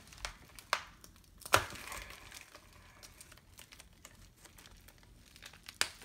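Plastic mailer bag crinkling as it is torn open by hand, with a few sharp rips, the loudest about one and a half seconds in and another near the end.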